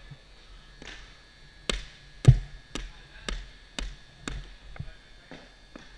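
A run of sharp taps from hockey gear knocking on a plastic dek hockey court, about two a second, loudest in the middle and fainter toward the end.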